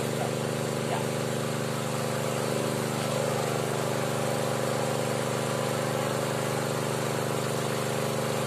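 Small engine of a water pump running at a steady speed, feeding water down the bore for well drilling, with an even, unchanging hum.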